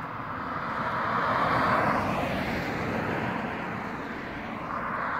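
Road and wind rush of a vehicle on the move along a mountain highway, a steady noisy roar that swells about two seconds in, eases, then builds again near the end.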